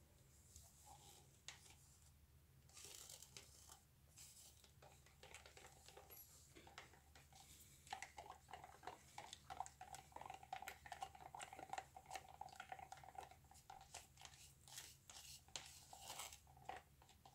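Faint plastic crinkling and clicking as cups are handled. From about eight seconds in, a stick stirs acrylic paint in a plastic cup with quick, repeated scraping and tapping.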